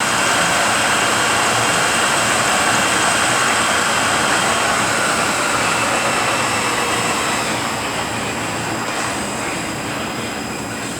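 Rebuilt Eaton Fuller RTO-16710B ten-speed truck transmission spinning on a test dyno: a loud, steady running noise with high gear whine. After about seven seconds the whine drops in pitch and the level eases off.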